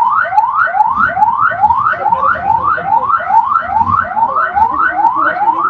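Electronic emergency siren sounding a fast rising yelp, about three to four quick upward sweeps a second, repeating without a break.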